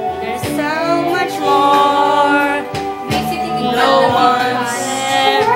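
Karaoke: a young man singing a slow ballad into a corded microphone over an instrumental backing track.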